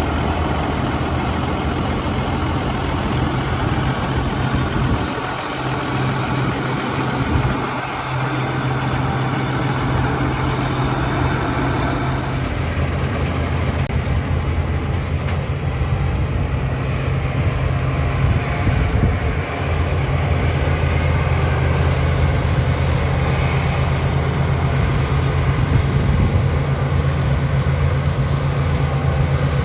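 Diesel engine of harvest machinery running steadily, with an abrupt change in the sound about 12 seconds in.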